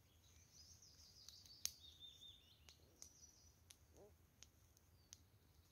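Faint birdsong, light high trills, over very quiet woodland, with a handful of sharp crackles and snaps from a small wood campfire being fed with sticks. The loudest crackle comes about one and a half seconds in.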